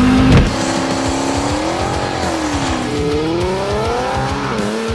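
Turbocharged 5.3-litre LS V8 in a 1993 Chevy truck revving, its pitch rising and falling twice, with music playing over it.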